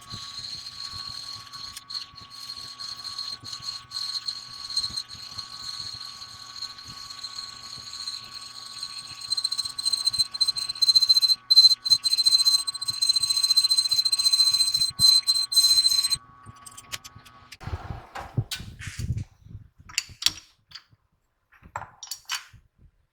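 A machine tool's spindle runs with a steady whine while a drill or reamer cuts the bore of a brass gear, a high squeal riding over it and growing louder about nine seconds in. The cutting stops abruptly near the end, the motor tone dies about a second later, and metallic clinks and knocks follow.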